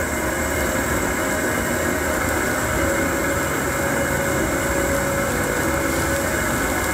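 Propane stove burner running under a pan of simmering soup, a steady low rumble and hiss.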